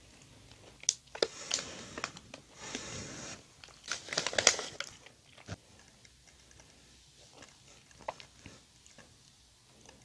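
Close-miked eating and handling sounds: chewing and mouth sounds, with a busy spell of crackly rustling and clicks from about one to five seconds in. After that come only a few soft clicks as a powdered, filled donut is pulled apart by hand.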